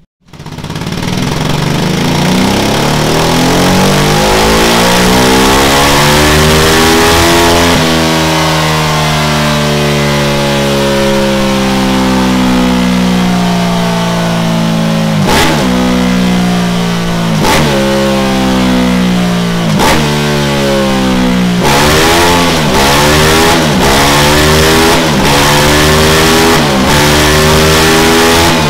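Ducati Multistrada 950's L-twin engine running hard on a dyno through a Delkevic tri-oval stainless steel silencer with de-cat pipes and the noise-suppressing baffle removed. The revs climb steadily for the first several seconds. The pitch then drops sharply and climbs again several times, in quicker succession near the end.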